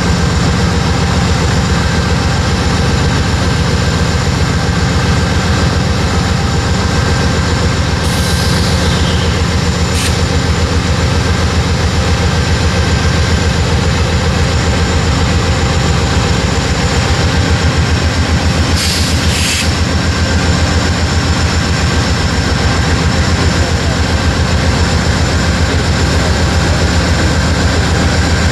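Norfolk Southern GE diesel freight locomotives rolling slowly past, their engines giving a steady, loud, pulsing rumble with a thin whine over it. A couple of brief high hisses come through, about eight and nineteen seconds in.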